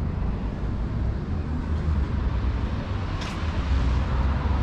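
Steady low outdoor rumble of road traffic, with a faint click about three seconds in.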